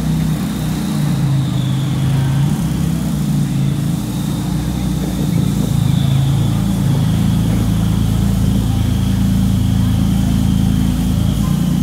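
A car engine running steadily with a low, even rumble and no revving.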